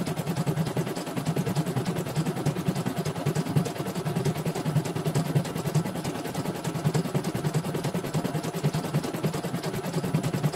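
CNY portable computerized embroidery machine stitching out a design, its needle bar running in a fast, even rhythm of strokes with the motor hum underneath. It is a test run after servicing, in which the motor and thread-tension set were replaced.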